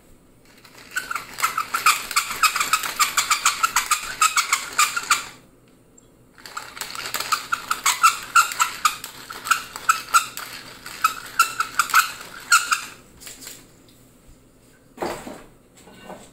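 Wooden pepper mill being twisted to grind pepper, a rapid run of gritty grinding clicks in two bouts with a short pause about five seconds in. A single short knock follows near the end.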